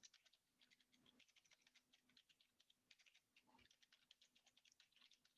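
Faint computer keyboard typing: a quick, irregular run of soft key clicks.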